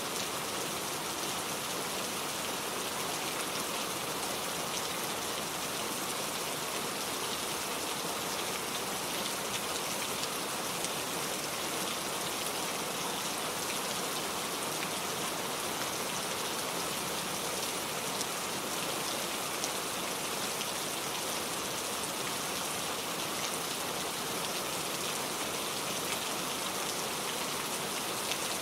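Heavy rain falling steadily, a dense even hiss of drops hitting surfaces with many small patters in it.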